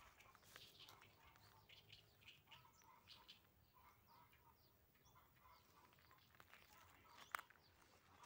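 Near silence of open countryside, with small birds chirping faintly now and then and a single sharp click about seven seconds in.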